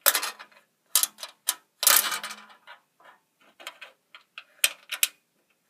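Sharp metallic clicks and short scrapes of a screw being worked into a computer case to mount a hard drive, in irregular bursts, the longest scrape about two seconds in.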